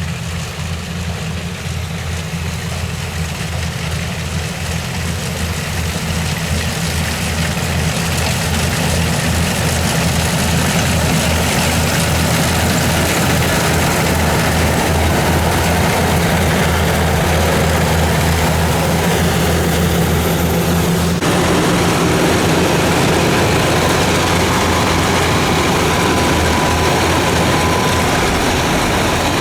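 Kubota DC-93 combine harvester's diesel engine running steadily, growing louder over the first ten seconds or so and then holding level.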